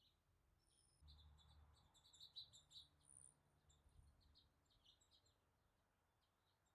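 Faint bird chirping: many short, high calls, thickest in the first few seconds and thinning out toward the end.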